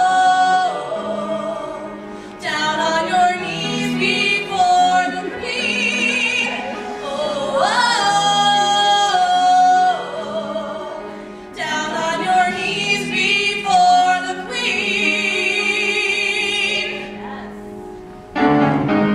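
A female lead and three backing singers singing the opening of a musical-theatre song in close harmony, with long held chords and vibrato on the sustained notes.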